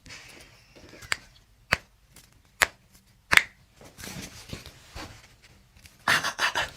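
Four sharp clicks, spaced from about half a second to a second apart, amid soft rubbing and handling of a body and clothing on a chiropractic treatment table, then a short rustling burst near the end.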